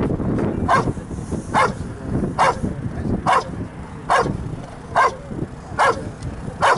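Dobermann barking in a steady, even rhythm, a little more than one bark a second, at a helper hidden in a blind: the hold-and-bark exercise of IPO protection work.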